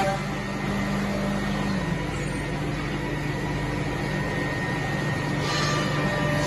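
Eight-spindle CNC wood milling machine running: a steady hum with a high, even spindle whine, and the hiss grows briefly about five and a half seconds in.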